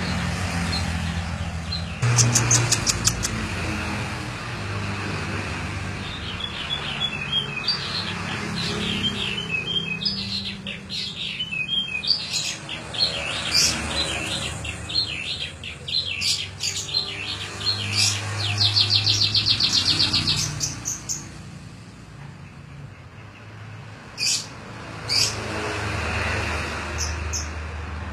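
Domestic canary singing, mimicking the song of a jalak (starling): a long run of varied chirps and whistles, with a fast rattling trill about two-thirds of the way through and a few sharp calls near the start and end. A steady low hum runs underneath.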